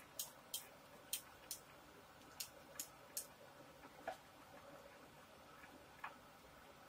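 Light, sharp clicks of a small screwdriver turning a Stratocaster-style bridge saddle's intonation screw as the saddle is wound back. The clicks come at an uneven two or three a second, then thin out to a few single ones.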